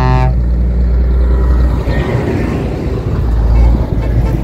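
Scania lorry driving past close by, its engine giving a loud, deep rumble with a swell of tyre and road noise as it passes about two seconds in. The tail of a multi-tone truck horn cuts off right at the start.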